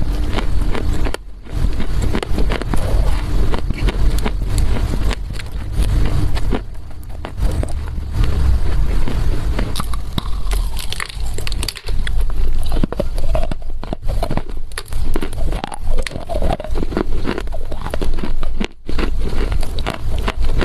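A chunk of dry loess clay being bitten and chewed, dense irregular crunching with a few brief pauses.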